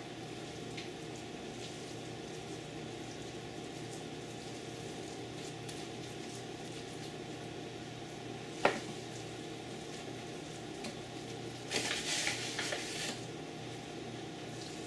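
Hands shaping ground gar fish meat into patties and rolling them in flour in a plastic tray: soft handling over a steady room hum, with one sharp knock about nine seconds in and a short spell of rustling and patting about twelve seconds in.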